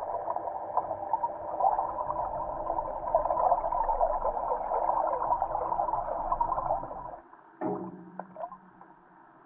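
Muffled underwater sound picked up by a submerged GoPro: a dense crackling and gurgling of water around the camera. It drops away a little after seven seconds in, followed by a single knock and a faint hiss.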